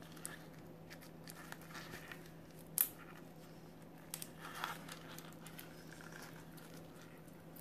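Faint handling of a rubber balloon as it is twisted and tied into a knot: soft rubbing and crinkling, with one sharp click a little under three seconds in and a short rustle a little later, over a faint steady hum.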